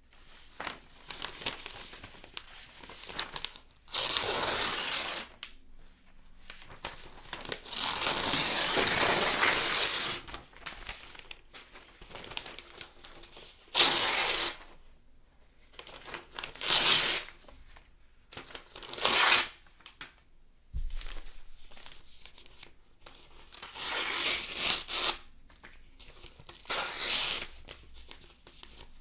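Newspaper being torn: about seven rips, two of them drawn out for a second or more and the rest short, with quieter paper rustling between them.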